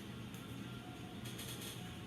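Faint background music playing steadily, with a brief soft noise about a second and a half in.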